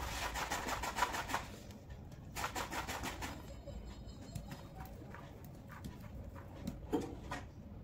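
Aari hook needle punching through cloth stretched taut on an embroidery frame: two bursts of rapid scratchy ticks in the first three seconds, then scattered single ticks and one louder knock near the end.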